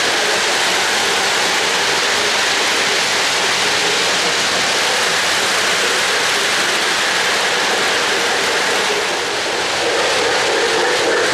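O-gauge model freight cars rolling past on three-rail track: a steady rushing rumble of metal wheels on the rails.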